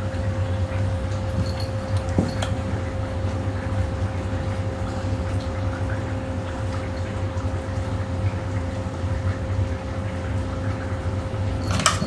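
A steady low background hum with a faint constant whine above it, a couple of soft clicks about two seconds in, and a brief sharp noise near the end.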